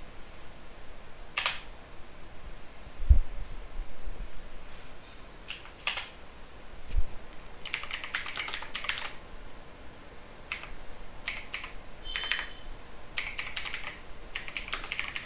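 Typing on a computer keyboard: scattered single keystrokes, then quick runs of keys from about eight seconds in and again near the end. A dull low thump about three seconds in is the loudest sound.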